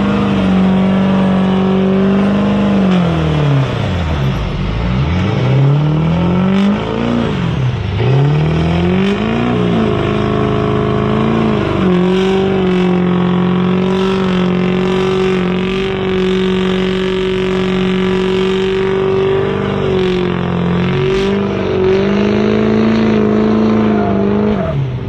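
Pickup truck engine held at high revs during a burnout, rear tyres spinning on pavement. A few seconds in the revs drop and climb back twice, then hold steady until they fall away just before the end.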